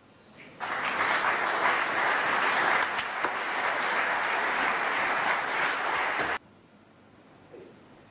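Arena audience applauding, starting suddenly about half a second in and cut off abruptly about six seconds in.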